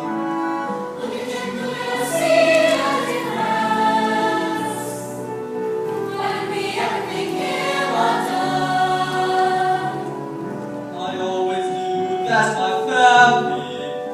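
A stage musical ensemble of young voices singing a song together in held notes, with musical accompaniment.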